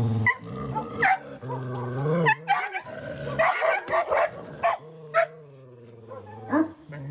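Dogs growling low and steadily, broken by a string of short yips and barks.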